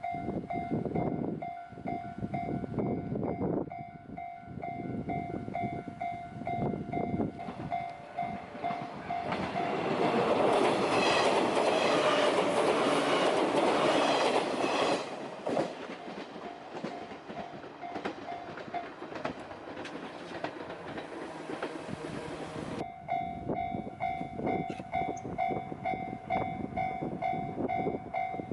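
Japanese level-crossing warning bell ringing its steady electronic 'kan-kan' while a JR Kusatsu Line train passes with wheel clatter. The train is loudest from about ten to fifteen seconds in, and the bell drops out for a stretch and rings again from about twenty-three seconds in.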